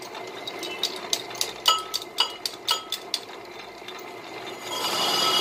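Brake disc spinning on a lathe while the cutting tools are set against it: a run of sharp metallic clicks and knocks that ring on. Near the end a louder, steady ringing scrape swells up.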